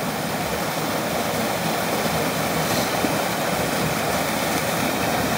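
Waterfall rushing steadily, an even roar of falling water.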